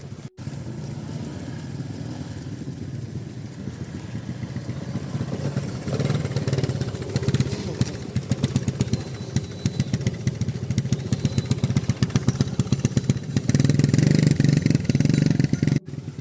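Small engine running with a rapid, even pulse; it grows louder about six seconds in and is loudest near the end.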